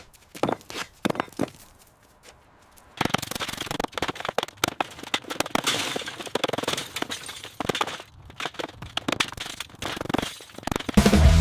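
Scattered knocks and clatters, then from about three seconds in a dense, irregular crackling and snapping, like debris or dry material being handled and broken.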